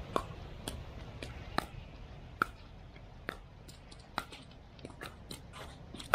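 Pickleball rally: paddles hitting a plastic pickleball back and forth, a string of sharp pops about every half second to a second, coming quicker and fainter in the last second and a half.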